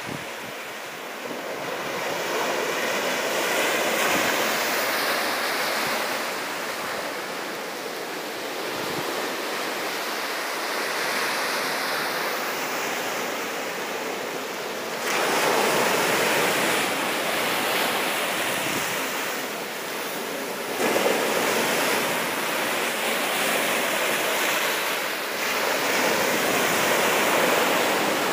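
Ocean surf breaking on a sandy beach and washing up the shore in a continuous rush that swells and eases, growing louder about halfway through and again a few seconds later.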